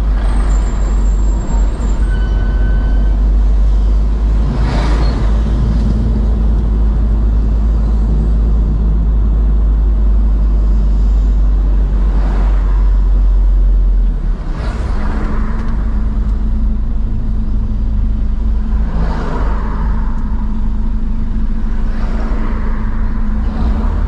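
A car driving along a town road: steady low engine and road rumble, with other vehicles whooshing past about five times. The rumble eases slightly a little over halfway through.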